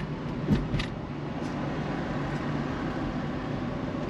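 Car driving, its engine and tyres giving a steady low hum with road noise. A short knock comes about half a second in, with a sharper click right after it.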